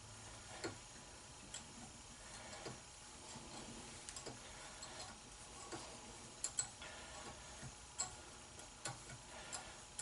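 Faint, irregular clicks and light creaks of a hand tap being turned in a tap handle to cut threads in a hole, about one small click every second.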